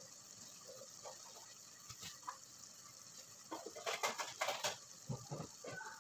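A utensil stirring diced lamb in a stainless steel pot: a quick run of scrapes and clicks against the pot about three and a half seconds in, with a few faint ticks before it.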